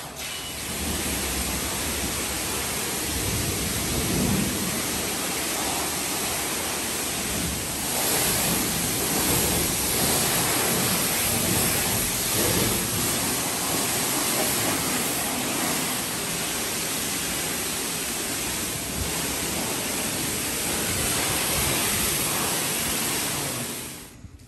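High-pressure car-wash wand spraying water onto a car, a steady hiss that stops suddenly near the end.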